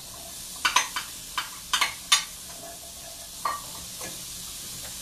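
Chard stems, onion and garlic sizzling in hot olive oil in a sauté pan, with a steady hiss. A utensil clicks against the pan about seven times, mostly in the first half.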